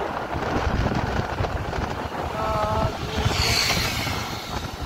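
Wind buffeting the microphone of a moving scooter, mixed with road and motor noise. A brief pitched sound, like a short voice, comes about halfway through, and a short hiss follows about three and a half seconds in.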